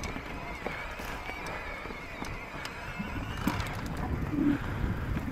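Electric mountain bike ridden over a dirt trail: a steady low rumble of tyres and wind, scattered clicks and rattles from the bike over bumps and roots, and a faint wavering whine from the motor. A short low hum-like sound comes about four and a half seconds in.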